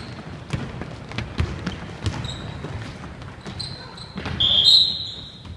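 A basketball being dribbled on a hardwood gym floor, a dull bounce about every half second, with sneaker steps, in an echoing hall. Near the end comes a loud, high squeak lasting about a second.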